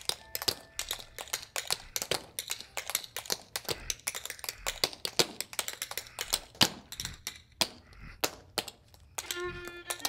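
Shoes tapping and stamping on a bare hard floor in percussive step dancing, several sharp taps a second in an uneven rhythm. A fiddle starts playing about nine seconds in.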